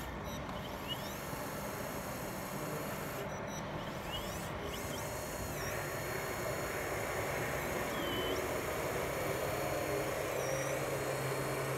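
Radio-controlled 8x8 model dump truck moving over dirt: short whines from its small electric motors and servos over a steady background noise. A low steady hum comes in near the end.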